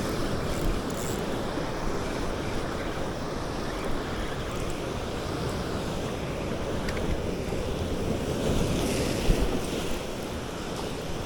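Sea surf washing against the rocks, a steady rushing wash that swells a little louder about eight to nine seconds in.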